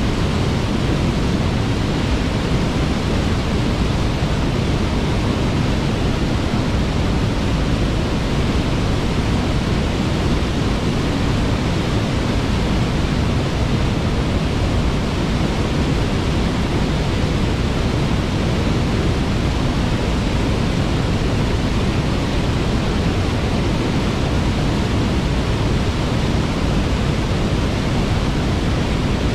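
Waterfall pouring, a loud, even rush of water that holds steady throughout.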